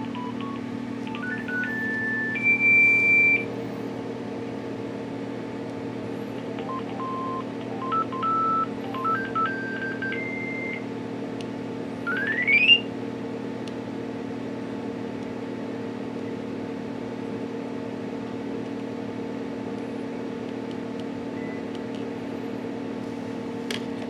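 Kyocera QCP-3035 cell phone's speaker playing short monophonic beep-tone ringtone previews: a run of single notes stepping upward at the start, another rising run of notes from about seven to eleven seconds in, and around twelve seconds in a quick rising electronic sweep from the Alarm tone. A steady low hum lies underneath throughout.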